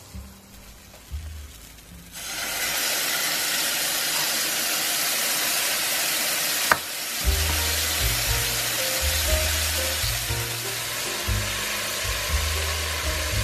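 Eggplant frying in a hot pan with a miso sauce: a loud sizzle starts suddenly about two seconds in as the liquid hits the hot pan, and keeps going, with one sharp click near the middle.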